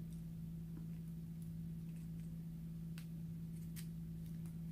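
A few faint, sharp clicks of a smartphone's microSD card tray being handled and pushed back into its slot, over a steady low hum.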